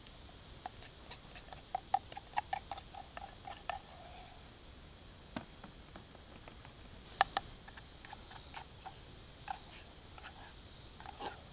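Metal spoon clinking and scraping in a metal camp cup while stirring and spooning out cornmeal batter: a quick run of light ringing taps about two seconds in, then scattered sharper clicks.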